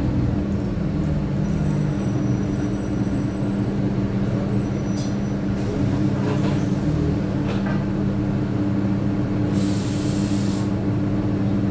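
Bus engine running with a steady drone, heard from inside the passenger saloon, with a few light rattles and clicks in the middle. A short hiss of air lasting about a second comes near the end.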